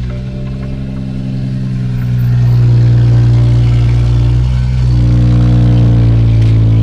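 Car engine running steadily, growing louder about two seconds in.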